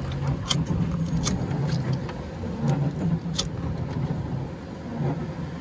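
A few sharp clicks of a lighter being flicked to burn the factory film off the inside of a tempered-glass dive mask lens, over a steady low rumble.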